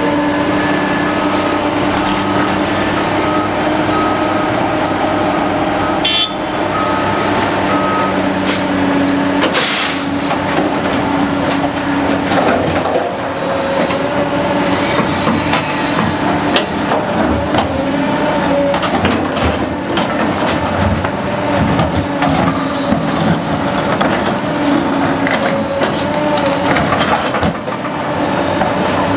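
Loud, continuous noise of heavy traffic and machinery: engines running steadily, with scattered knocks and a sharp bang about six seconds in.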